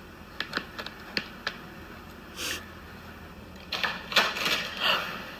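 A few sharp clicking taps of a cat's paw on a tablet screen, then, nearly four seconds in, a louder flurry of clicks and rattling as a cat paws at the flap of a pet door.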